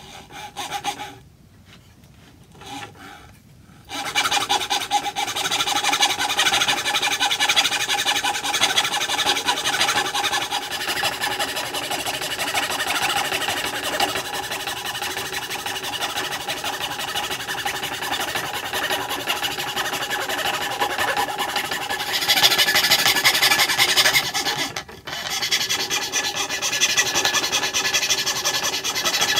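Antique New Rogers treadle fretsaw cutting oak: the fine blade strokes rapidly up and down through the wood with a steady rasping. It starts about four seconds in, gets louder for a couple of seconds around the 22-second mark, and pauses briefly near 25 seconds before carrying on.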